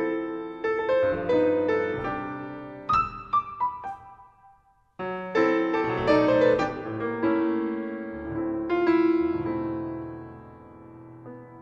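Solo grand piano playing: a phrase of quick notes and chords that dies away about four and a half seconds in, a short pause, then a loud chord opening a second phrase that fades near the end.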